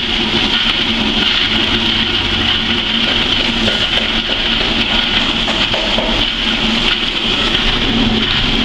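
Soybean dehulling machine running: a steady motor hum under a continuous rushing noise.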